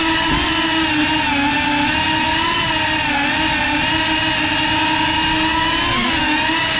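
Small FPV quadcopter's motors and propellers whining at a steady pitch with several tones, the pitch dipping briefly about six seconds in.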